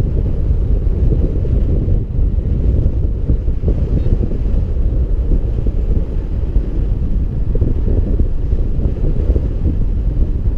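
Airflow buffeting the microphone of a riser-mounted camera on a paraglider in flight: loud, steady wind noise, mostly a low rumble.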